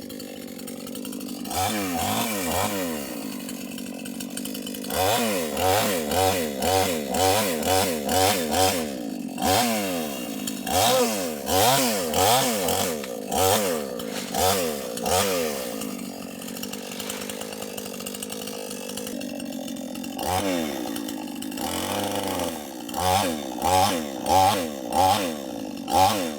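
Two-stroke chainsaw revved up and down in quick repeated bursts, about two a second, dropping back to a steady idle for a few seconds in the middle before revving again.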